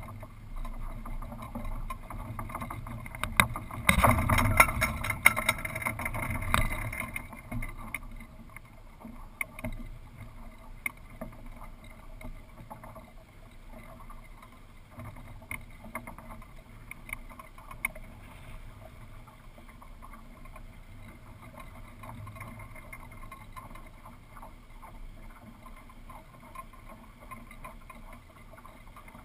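Wind and rigging noise of a small sailboat under sail, picked up by a camera mounted on the mast: a steady muffled rush with scattered light knocks. About four seconds in comes a louder stretch of dense knocking and rushing that lasts about three seconds.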